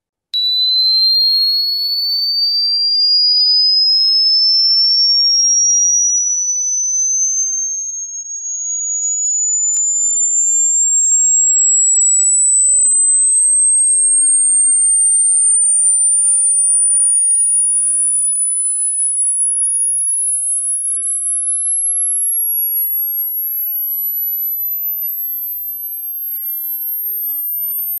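Electronic sine-tone sweep: a single pure whistle that starts abruptly just after a moment of silence and glides slowly upward from a high to a very high pitch. It is offered as a high-frequency tone to drive off crickets.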